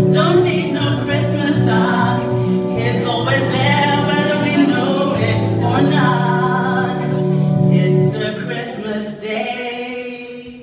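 A choir and backing music performing the close of a Christmas song, with held sung notes over steady accompaniment, dying away over the last couple of seconds.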